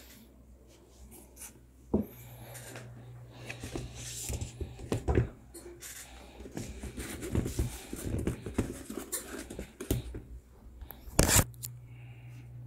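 Handling noise from a pair of sneakers being moved about on their shoebox: rustling and scraping with a few sharp knocks, the loudest near the end. A low steady hum sits underneath.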